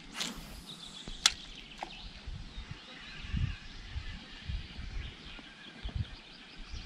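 A spinning rod being cast: a quick swish of the rod through the air at the start, then a single sharp click about a second later. Birds chirp faintly in the background.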